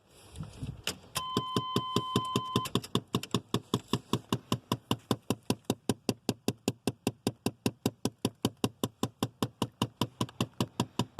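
Rapid, even knocking from behind the dash of a 1988–94 Chevy/GMC pickup, about five knocks a second: the air recirculation or vent door actuator clicking, the sign of a failing actuator. A steady electronic warning tone sounds for about a second and a half near the start.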